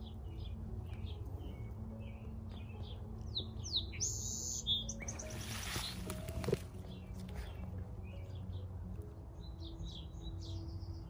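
Songbirds chirping and calling in short scattered phrases over a low steady hum, with one louder call and a brief rush of noise about halfway through.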